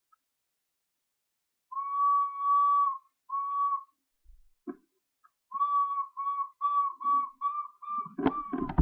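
A person whistling a clear note: one long note, a shorter one, then a quick run of about seven short notes that rise slightly in pitch near the end.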